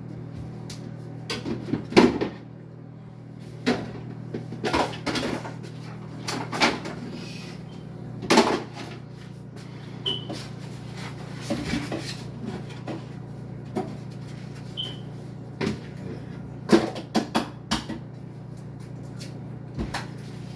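Kitchen handling clatter: irregular knocks and clunks, like cupboard doors and dishes being set down, over a steady low hum.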